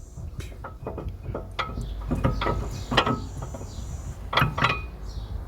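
Metallic clicks and clinks, a few ringing briefly, as a brake pad stuck fast to the piston is worked out of a Mercedes W202 front brake caliper. The sharpest knocks come about three seconds and four and a half seconds in.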